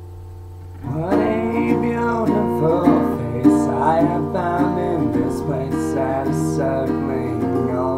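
Guitar playing chords: a quieter chord rings first, then louder strumming starts about a second in, with a man singing along.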